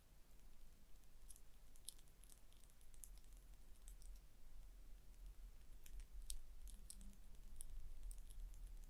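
Gentle ASMR tapping and scratching on a small object: faint, irregular light clicks, several a second at times, over a low steady hum.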